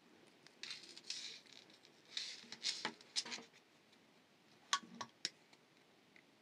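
Fine metal jewelry chain and wire being handled, rustling and clinking in the fingers in two short spells, then a few sharp small metal clicks as round-nose pliers are taken up.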